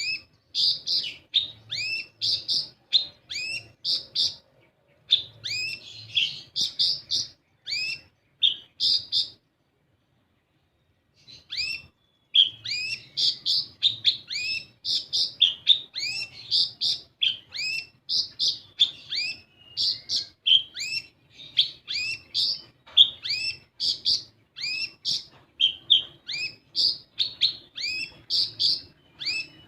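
Kolibri ninja sunbird singing a fast, unbroken string of high, sharp chirps, several a second, that stops for about two seconds about a third of the way in.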